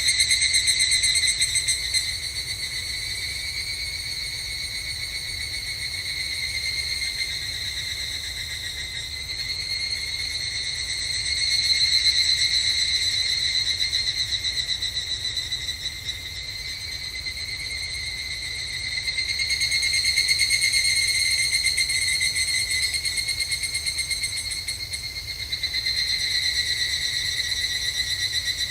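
Higurashi evening cicadas (Tanna japonensis) calling in rapid, pulsing, ringing trills, several overlapping, the chorus swelling and fading in waves every several seconds.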